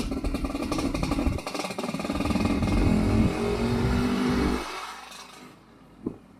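Yamaha RX King two-stroke motorcycle engine with an aftermarket underslung exhaust, running with its pitch rising. The engine sound then cuts off suddenly about four and a half seconds in.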